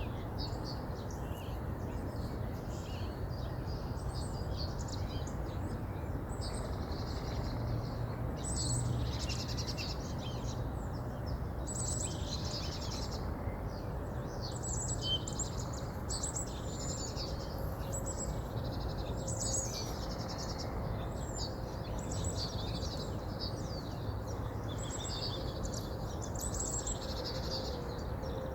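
Songbirds singing in quick, twittering phrases that repeat every second or two, over the steady rush of a flowing river.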